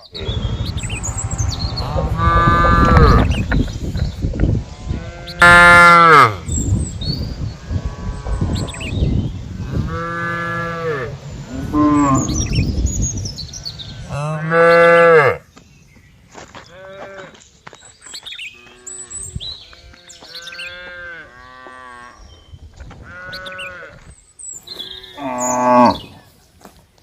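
Cattle mooing again and again: a string of short calls of differing pitch, loud through the first half and softer after about fifteen seconds. Faint bird chirps sound in the background.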